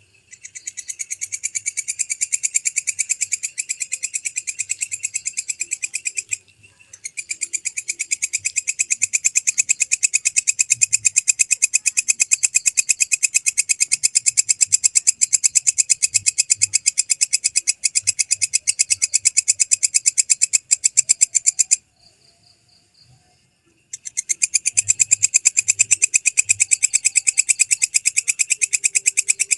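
Walang kecek (belalang kecek) bush cricket singing: a loud, high-pitched, rapid pulsing trill that breaks off briefly twice and starts again.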